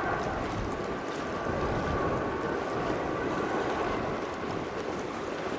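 Airbus A330 jetliner on final approach: a steady jet engine rumble with a faint high whine, and wind noise on the microphone.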